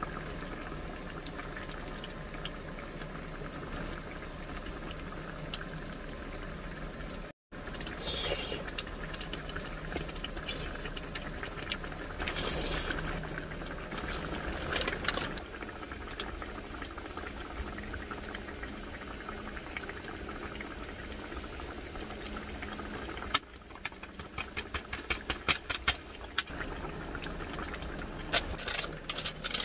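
Spicy stew bubbling at a boil in a cast-iron pan on a portable butane gas stove. Near the end, a run of sharp clicks as chopsticks work in the pan.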